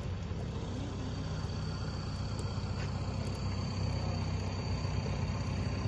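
Mahindra Thar engine running steadily as the SUV drives across grass, a low even drone.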